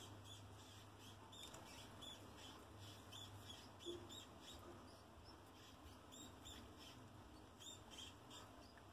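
Faint, high-pitched squeaks of laboratory rats feeding together: short chirps in quick, irregular runs over a low steady hum.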